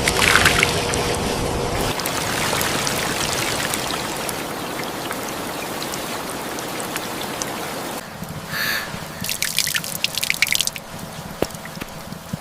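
Rain falling steadily. About eight seconds in it gives way to a quieter bed of dripping and trickling water broken by several short, louder bursts of noise.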